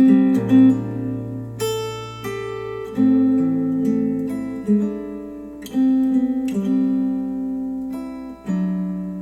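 Acoustic guitar music, single plucked notes and strums ringing out roughly once a second, played back through Focal Aria 906 bookshelf speakers driven by an NAD C 338 amplifier.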